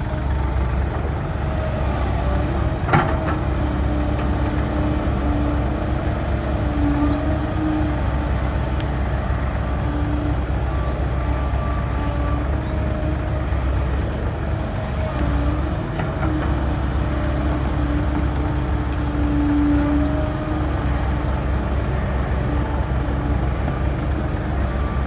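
Heavy diesel engine running steadily under load, with a pitched hum that swells about 7 seconds in and again near 20 seconds, and a single sharp click about 3 seconds in.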